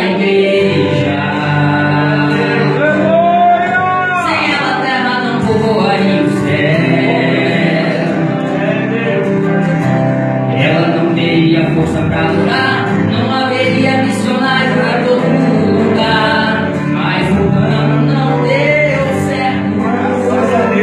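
Christian worship song: several voices singing over a steady instrumental backing.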